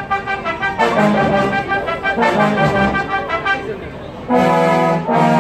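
Brass band playing live: a series of brass chords and phrases, then a loud full-band chord entering suddenly about four seconds in.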